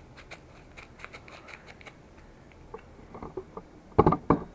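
A small foil yeast packet being shaken and flicked over a fermenting pail, giving faint, rapid crinkly ticks, about four a second, as the dry wine yeast is sprinkled on. About four seconds in come several loud knocks and clunks of handling.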